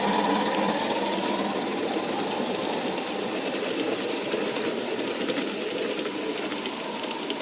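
Model train running on track: a steady mechanical whirr and clatter from the locomotives' motors and wheels, easing off slightly toward the end.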